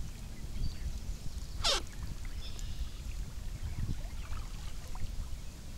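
Water trickling and dripping around a kayak at the shoreline, over a steady low rumble. About two seconds in there is one short swish that falls sharply in pitch.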